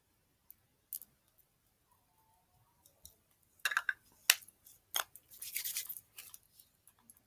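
Hands rubbing moisturizing lotion into skin, with a small plastic jar being handled: soft hissy rubbing and scattered clicks and knocks, a sharp click about four seconds in being the loudest.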